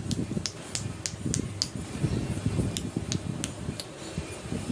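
A series of light, irregular clicks, a few a second, over a low rumble of room noise.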